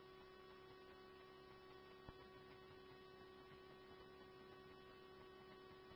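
Near silence: a faint steady electrical hum on the scanner recording between radio transmissions, with one tiny click about two seconds in.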